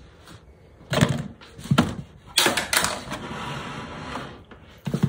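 A run of sharp knocks and clatters, about four in the first three seconds, with rustling between them and another knock near the end.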